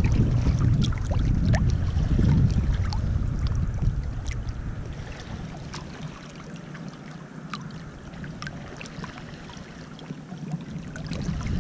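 Small waves lapping and trickling over a shallow pebble shore, with scattered little splashes and drips. A low rumble is loud for the first few seconds, dies down in the middle and comes back near the end.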